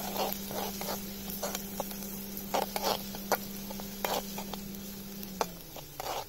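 Metal spatula scraping and knocking against an iron kadai of frying onions, with a faint sizzle. Under it, a steady hum from the idling Maruti Celerio's electric radiator fan, which cuts in now and then while the car stands running, winds down and stops about five and a half seconds in.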